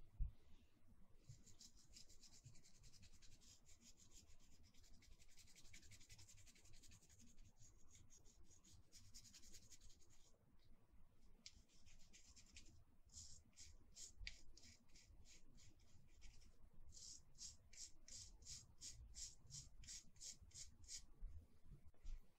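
Toothbrush bristles scrubbing a small circuit board: a continuous soft brushing from about a second in until about ten seconds in, then short back-and-forth strokes at about three a second in two spells later on. A light knock right at the start.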